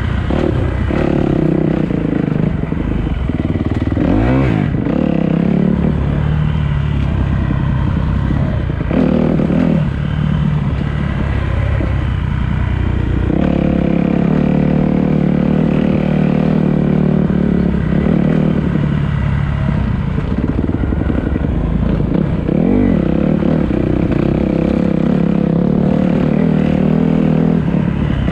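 Dirt bike engine running hard on a forest trail, the revs rising and falling repeatedly as the throttle is worked, with occasional knocks and rattles from the bike over rough ground.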